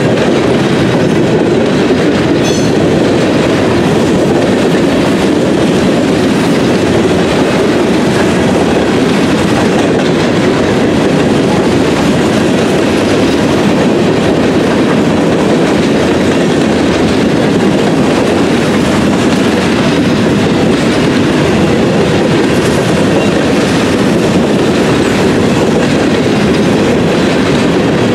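Freight train of covered hopper cars rolling past close by: a loud, steady rumble of steel wheels on the rails.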